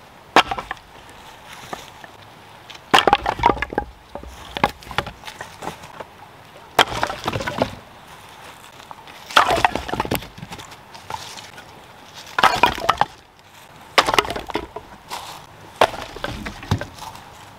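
Split firewood pieces tossed onto a woodpile, knocking and clattering against each other in about eight short bursts a second or two apart.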